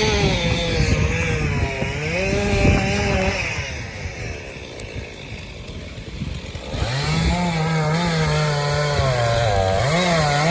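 Two-stroke chainsaw running at high revs while cutting wood, its pitch wavering up and down. About four seconds in it eases off to a quieter, lower running for a few seconds, then revs up again near seven seconds.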